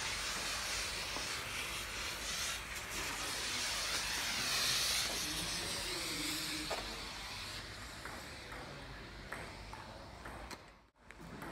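Coloured smoke grenade hissing steadily as it pours out purple smoke, the hiss dying away over the second half.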